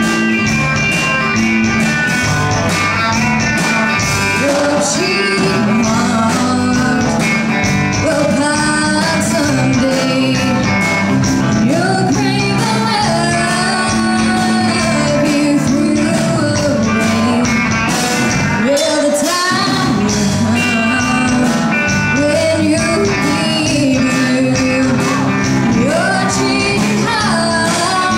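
Live band playing, with a woman singing lead into a microphone over guitar and drums; her voice comes in about four seconds in.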